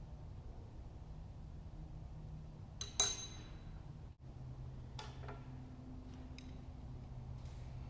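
Metal parts of an air blow gun and its aluminum extension tube clinking together as they are handled and fitted: one sharp clink with a short ring about three seconds in, then a few lighter taps. A steady low hum runs underneath.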